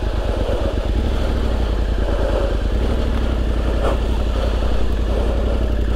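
Yamaha Ténéré 700's parallel-twin engine running steadily at low revs, with no revving up or down.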